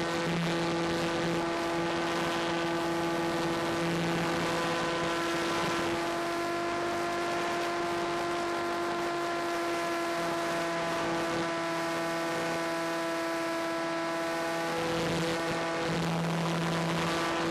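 Skywalker RC plane's electric motor and propeller running at a steady throttle, a constant whine over rushing air, its pitch shifting slightly a third of the way in and again near the end.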